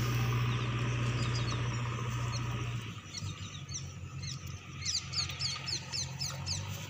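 A steady low hum that stops about three seconds in, then a bird calling with quick, high, down-slurred chirps, a few a second.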